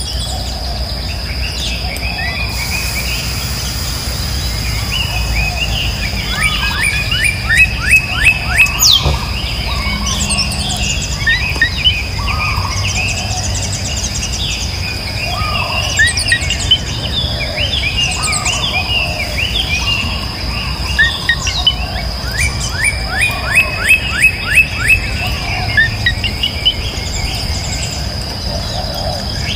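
Birds chirping, several times breaking into quick runs of short rising notes, over a steady high-pitched drone of insects.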